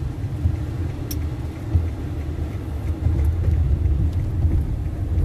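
Steady low rumble of engine and road noise heard from inside a moving vehicle on a wet road, with one short click about a second in.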